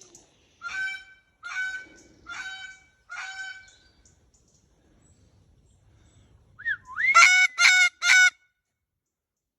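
Pet parrot calling: four short calls about a second apart, then after a pause a rising whistle and three louder calls in quick succession near the end.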